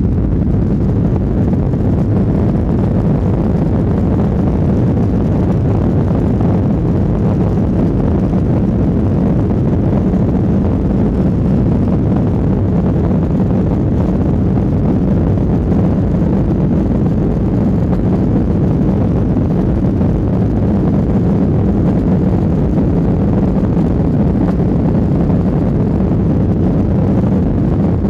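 Steady low rumble of airliner cabin noise in flight: jet engines and rushing air heard from inside the cabin, constant in level.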